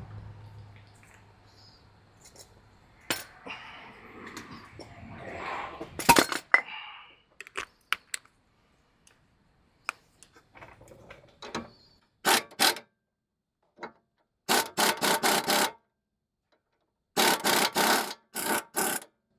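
Power impact wrench fired in several short bursts of about a second each, driving the nut on a sway bar end link, after a few scattered clacks and clinks of tools.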